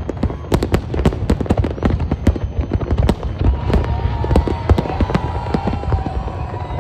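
Fireworks display: a rapid, continuous barrage of sharp cracks and bangs over a deep rumble of booms. A thin, slightly wavering high tone joins about halfway through.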